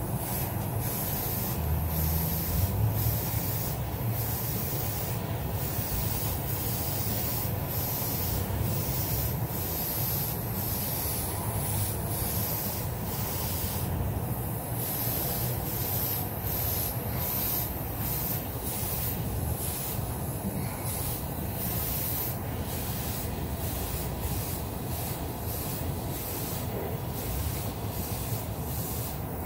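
Airbrush spraying a medium second coat of car paint: a steady hiss of air, its top end broken into many short passes that start and stop.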